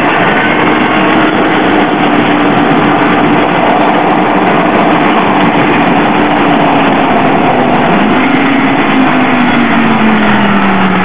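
Motorcycle at speed on a racetrack: a steady engine note under heavy wind rush, with the engine pitch sliding down near the end as the bike slows.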